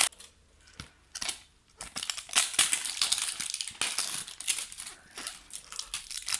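Clear crinkly wrapping layer of an LOL Surprise toy ball being torn and peeled off by hand: a sharp snap, a few scattered crackles, then continuous crinkling and tearing from about two seconds in.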